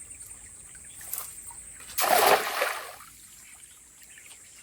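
A cast net is thrown and lands on the river with a splash about two seconds in, dying away within a second.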